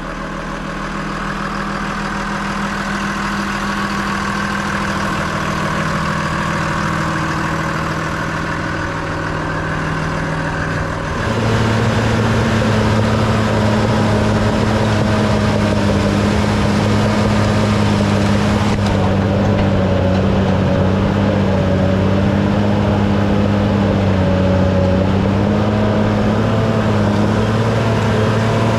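Bulldozer's diesel engine running warm, then throttled up about eleven seconds in to a higher, louder, steady speed.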